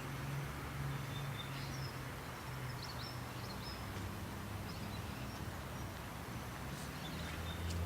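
Outdoor background noise: a steady low motor hum underneath, with a few short, faint bird chirps.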